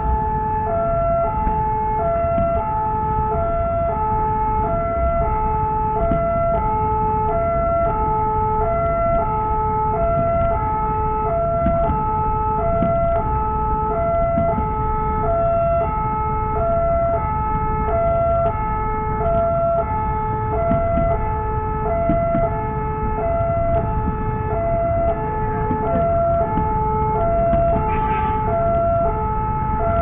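Railway level-crossing warning alarm: an electronic signal alternating steadily between two tones, warning that a train is approaching. Under it is a low, steady rumble of road traffic.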